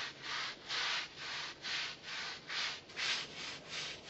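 Rhythmic scrubbing strokes on wet stone, about three a second, each a short rasping rub.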